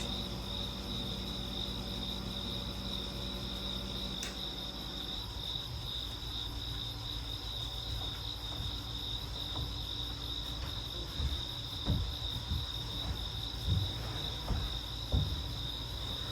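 Crickets trilling steadily in a continuous night chorus. In the second half there are a few soft low knocks.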